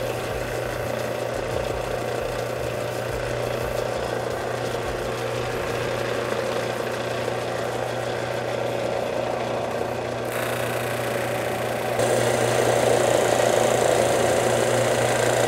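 Electric power strop running with a steady motor hum. About ten seconds in a hiss joins, and about two seconds later the sound gets louder, as the steel chip breaker of a hand plane is pressed against the spinning wheel to hone its edge.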